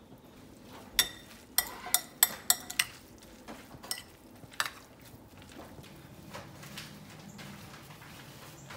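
A utensil clinking against a glass mixing bowl as dressing is stirred into a glass-noodle salad: a quick run of about six ringing clinks in the first three seconds, then a few more about four seconds in.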